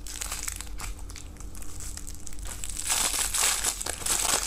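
Clear plastic candy wrapper crinkling as it is pulled open by hand. The crinkling is faint and scattered at first, then gets louder and denser about three seconds in.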